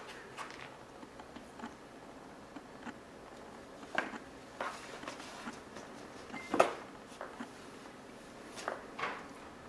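Cardboard box scuffing and knocking as a cat rolls and shifts inside it, a few short scrapes and taps scattered through, the loudest about two-thirds of the way in.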